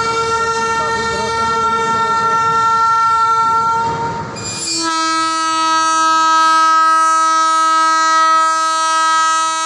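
WAG-12 electric locomotive's air horn sounding two long, loud blasts: a higher note for about four seconds, then a lower note held from about five seconds in.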